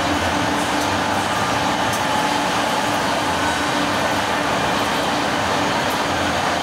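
Steady exhibition-hall machinery noise with a low hum that cuts in and out, as from a laser cutting machine's gantry motors and exhaust running among other machines.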